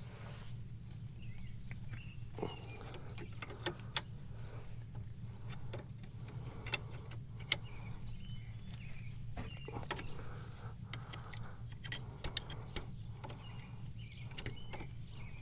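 Wrenches clinking and scraping on a steel hydraulic line fitting as it is worked loose, with sharp metal clicks, the loudest about 4 and 7.5 seconds in, over a steady low hum.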